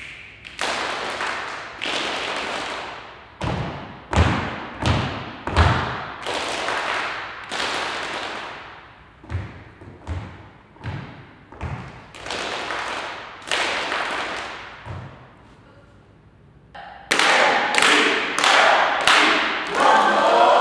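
Group body percussion in a reverberant studio: irregular loud stomps on a wooden floor and hand strikes, each ringing on in the room. After a short lull near the end, several voices speak together.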